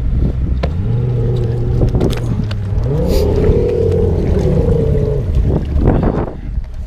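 Strong wind buffeting the microphone, with an engine running nearby whose pitch rises about two and a half seconds in and falls again near the end.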